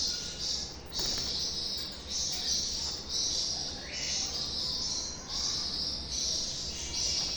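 Birds chirping: a dense high chatter that comes in pulses of about half a second to a second, with one short rising call about four seconds in.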